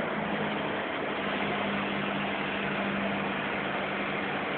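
Forklift running with a steady hum as its hydraulics rotate a paper roll clamp attachment. A constant tone sits over a faint regular pulsing, with no change in pace.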